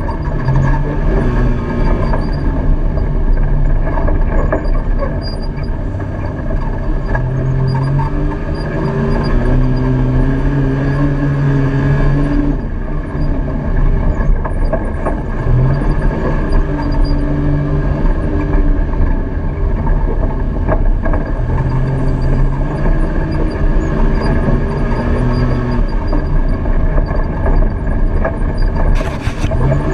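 Side-by-side UTV engine running under the rider, its pitch rising and falling as the throttle comes on and off over rough trail, with constant rattle and trail noise. A sharp knock comes near the end.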